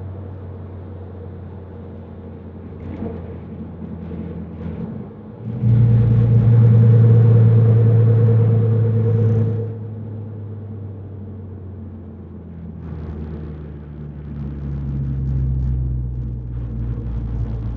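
Mercedes C300's turbocharged four-cylinder engine and MagnaFlow-muffled exhaust droning from inside the cabin while driving; it gets much louder under hard acceleration for about four seconds, settles back to a cruise, then swells again briefly near the end.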